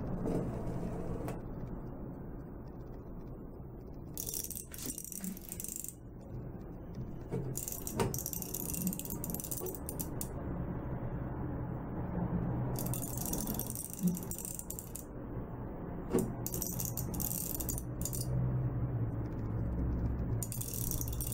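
Metal parts of a small hand-turned model paddle wheel rattling and clinking in short bursts as its hinged steel-mesh blades swing on their one-way hinges, with a few sharp clicks.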